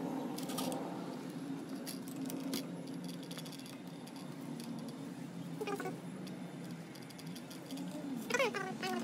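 Small clicks and rustles of a clear plastic protective film being handled and pressed onto a 1:18 diecast model car, over a steady low hum. Near the end there are a couple of short, falling squeaks.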